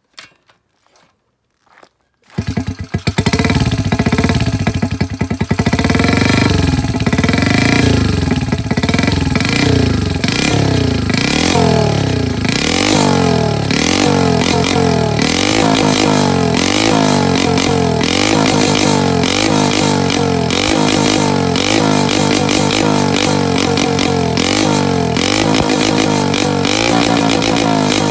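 A custom Honda Monkey's single-cylinder four-stroke engine starts about two seconds in, after a few faint clicks. It is then revved in repeated throttle blips through a Pretty Racing exhaust with the silencer removed (straight pipe). The pitch rises and falls with each blip, and the blips come quicker and closer together later on.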